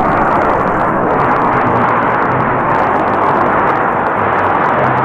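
Jet fighters flying past in close formation: a loud, steady rush of jet engine noise.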